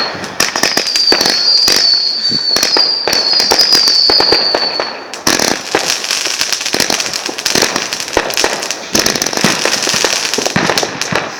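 A 110-shot Titan Powershot fireworks battery firing in quick succession. For about five seconds the shots carry a series of falling whistles among sharp bangs. Then the effect changes to dense crackling and popping.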